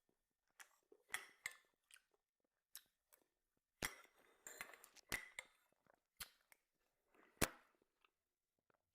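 A person eating: quiet chewing with irregular sharp mouth clicks and smacks, the loudest one near the end.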